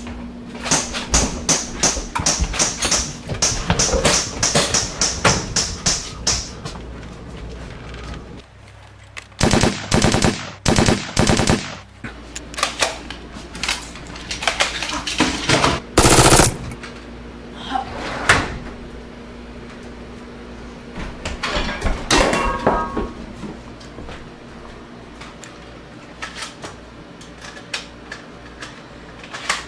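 Gunfire in a shootout: a dense run of rapid shots for the first several seconds, a second quick volley around ten seconds in, then scattered single shots with pauses between, the loudest about halfway through.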